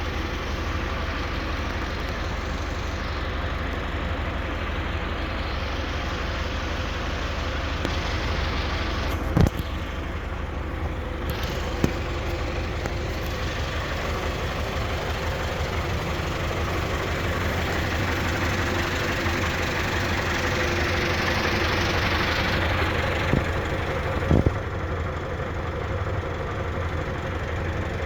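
Claas Variant 360 round baler running on a tractor's power take-off, its drive and rotor turning with a steady mechanical drone over the tractor engine. The drone grows louder about two-thirds through, and there are a few sharp knocks, about three in all.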